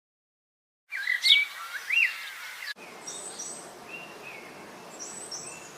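Recorded birdsong sound effects previewed one after another: chirps over a steady outdoor background noise start about a second in and cut off abruptly before the three-second mark. A second birdsong recording with fainter, sparser chirps follows at once.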